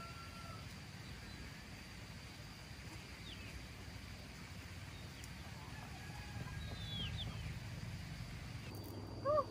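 Quiet rural yard ambience with a steady low hum, a few faint high bird chirps, and one short, loud animal call near the end.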